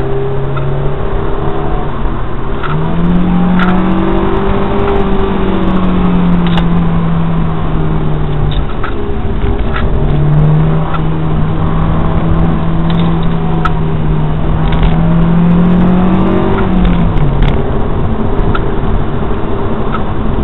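Honda S2000's 2.0-litre four-cylinder engine heard from inside the cabin while driving a twisty road. The engine note rises and falls with the throttle: it jumps up about three seconds in, sinks, climbs again in the second half, then drops near the end. A few sharp clicks sound over it.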